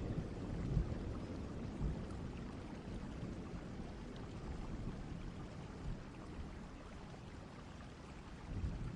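Steady rain from a distant-thunderstorm ambience recording, with the low rumble of thunder dying away at the start and a brief low swell near the end.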